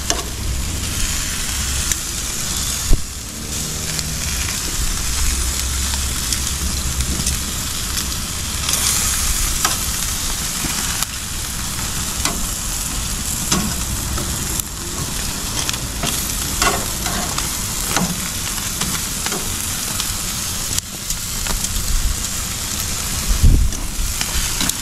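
Duck heads sizzling steadily on a gas barbecue grill. Metal tongs click against the grate now and then as pieces are turned and lifted, the sharpest click about three seconds in.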